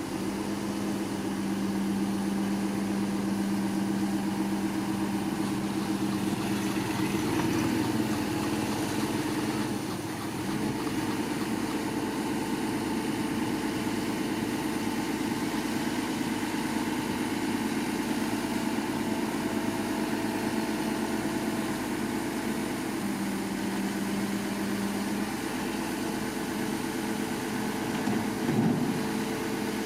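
Bulldozer's diesel engine running steadily, with a low hum whose pitch shifts now and then, and a short louder swell near the end.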